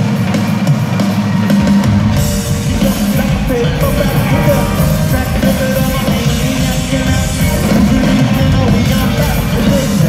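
Rock band playing live, heard from high in an arena's stands: bass guitar, drum kit and electric guitar with a sung lead vocal. The low end fills out about a second and a half in.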